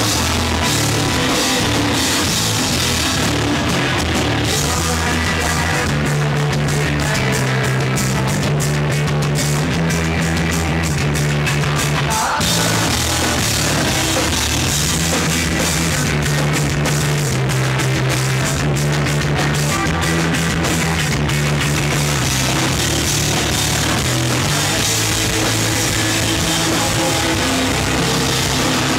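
A rock band playing loud heavy rock live, with electric guitar and a drum kit, steady and dense with a stepping bass line.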